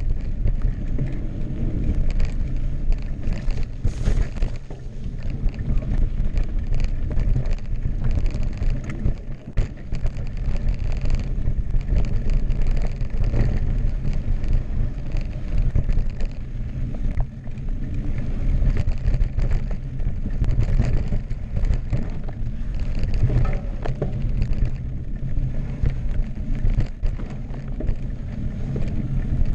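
A 2016 Specialized Enduro Expert Carbon mountain bike rolling fast down dirt singletrack, its tubeless tyres rumbling and the bike clattering in quick, irregular ticks over stones and roots. Heavy wind rumble on the microphone runs under it.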